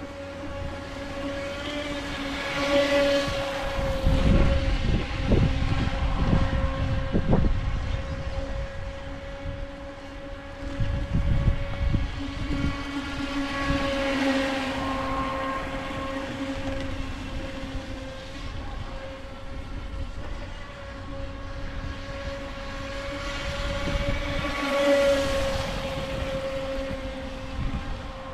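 UDI 022 Tylosaurus RC speedboat's brushless electric motor whining steadily at full throttle, with the hiss of spray off the hull. It swells as the boat passes close, about three seconds in, again around fourteen seconds, and near the end. Low gusts of wind rumble on the microphone in between.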